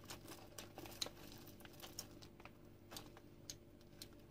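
Faint crinkling of a clear plastic snack packet handled in the hands: a scatter of small irregular clicks and crackles.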